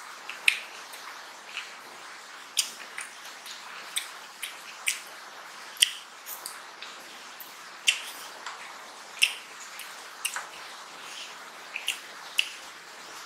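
Close-miked eating with the hand: irregular wet mouth clicks and lip smacks from chewing rice and mutton curry, roughly one a second, along with fingers squishing and mixing rice on a steel plate, over a steady faint hiss.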